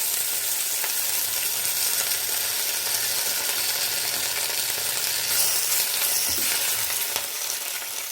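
Thoothuvalai (Solanum trilobatum) leaves sizzling steadily as they sauté in hot ghee in a pan over a low flame.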